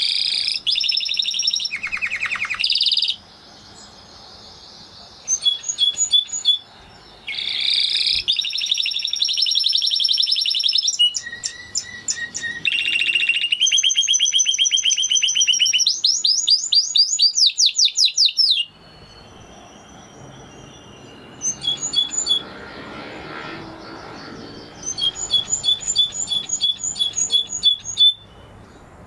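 Spanish Timbrado canary singing: a series of phrases of fast rolls and rapid repeated trill notes, each a few seconds long, with short pauses between them.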